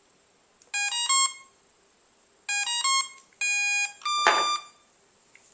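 Electronic beep tones from a Boost surfing fin being switched on: a quick run of stepped beeps about a second in, another quick run about two and a half seconds in, then two longer tones, the last with a brief knock under it.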